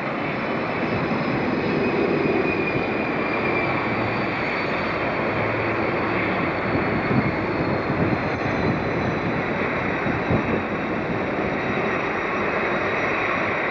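Multiple-unit passenger train running along the track: a steady running noise with a faint high whine that slowly falls in pitch.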